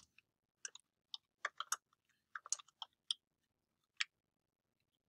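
Computer keyboard keys tapped in an irregular run of about a dozen faint, separate clicks, with the last one near the end and a short gap before it.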